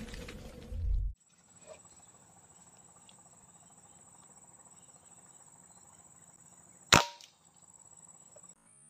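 Gunfire sound effects from an intro fade out about a second in. Then a steady high-pitched insect drone, broken about seven seconds in by a single sharp shot from a scoped hunting rifle.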